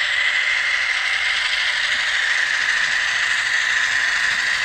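Sound decoder in an N scale diesel locomotive model playing a steady diesel engine sound through its tiny speaker as the model rolls along the track. The sound is thin, with almost no deep bass.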